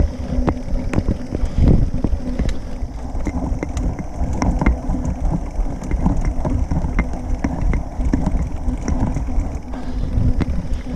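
Mountain bike being ridden over a rough trail: steady wind rumble on the microphone, with frequent clicks and rattles from the tyres and bike over stones.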